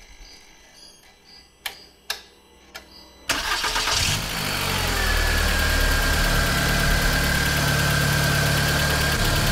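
A few light clicks, then about three seconds in the VW Jetta's 2.0 four-cylinder is cranked by its new starter, catches within about a second and settles into a steady idle. A thin, steady whine rides over the idle.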